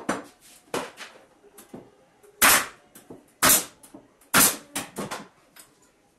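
Pneumatic nail gun firing three times, about a second apart, each shot a loud sharp crack as it drives a nail into a pine block. Lighter knocks and clicks of the wooden pieces being handled come before and after the shots.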